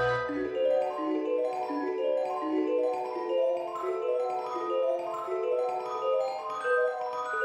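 Background music: a light melody of short pitched notes, several a second, with a low bass note dying away in the first second.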